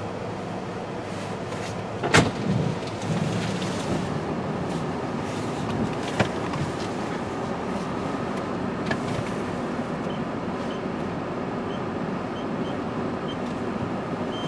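Steady hum of a car idling, heard from inside the cabin, with one sharp thump about two seconds in followed by a short low rumble, and a few fainter clicks later.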